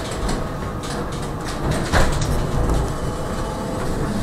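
Cabin noise of a tram: a steady low rumble of the running gear on the rails, with scattered clicks and a sharper knock about two seconds in.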